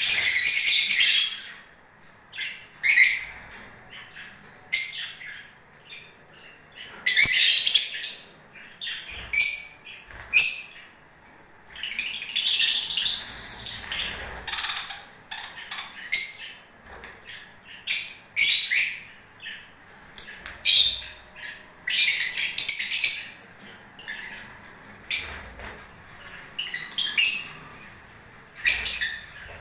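Lovebirds calling: shrill, high-pitched chirps and squawks in short bursts and longer chattering runs, with brief lulls between.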